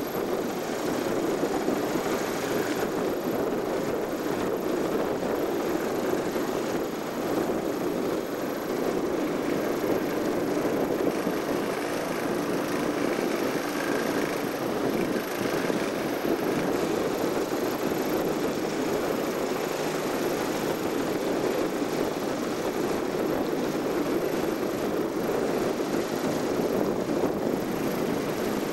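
Outboard motor of a small motorboat running steadily, a constant drone without changes in speed.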